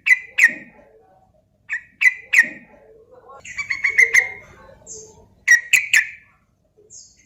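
Yellow-vented bulbul (trucukan) singing its loud, bubbling song in short, separate phrases, with a longer rapid run of notes in the middle.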